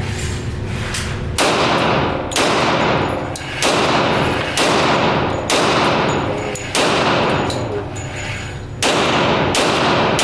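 A semi-automatic pistol fired in a string of about eight shots, roughly one a second with a longer gap near the end. Each shot echoes with a long tail in the indoor range.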